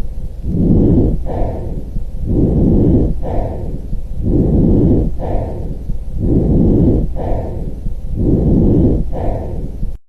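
Lung breath sounds heard through a stethoscope: about five slow, regular breaths, each a short, sharper phase followed by a longer, lower rushing phase.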